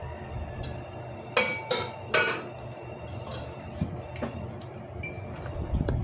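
Kitchenware clinking as food is dished onto a plate: three sharp ringing clinks in quick succession about a second and a half in, then a few lighter knocks.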